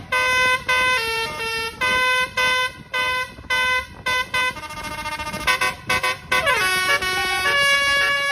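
Basuri telolet multi-tone horn playing a tune: a run of short horn notes stepping up and down in pitch, a quicker stretch of notes in the middle, a sliding drop in pitch, then a longer held note near the end.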